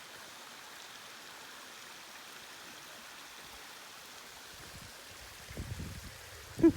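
Steady rushing of a mountain stream, with low bumps near the end that sound like handling or wind on the microphone.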